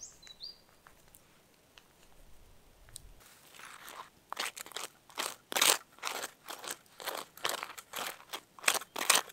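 Table knife scraping mayonnaise across crisp toasted Turkish bread. Quiet at first, then short rough strokes about twice a second start a little before halfway, the loudest near the end.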